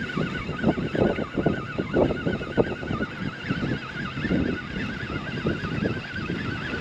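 Fishing reel being wound in steadily, a thin warbling whine that wavers up and down several times a second, over irregular low knocks and splashes of water and wind around the small boat.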